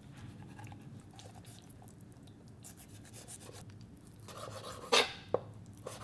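Kitchen knife slicing and scraping through raw chicken on a wooden cutting board, faint and scratchy, with a sharp knock on the board about five seconds in, then a lighter tap.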